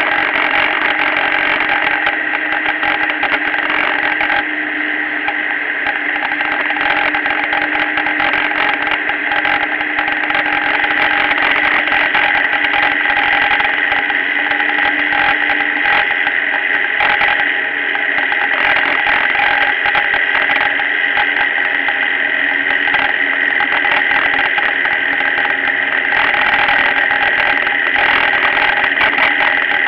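Motorcycle engine running steadily while riding at road speed, with wind and road noise rushing over the bike-mounted camera. A steady hum underneath fades out about halfway through.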